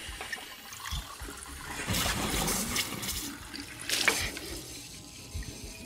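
Water running from a tap into a bathroom sink, louder for a while about two seconds in, with a sharp splash-like hit just after four seconds.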